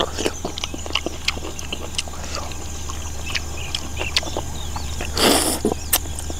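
Close-miked eating of a soup-cooked goat trotter by hand: wet mouth clicks and smacks as meat is chewed and pulled from the bone, with one longer slurping suck about five seconds in.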